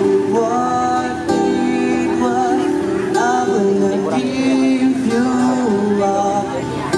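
Street band playing: a male singer through a microphone and PA speaker, with two acoustic guitars.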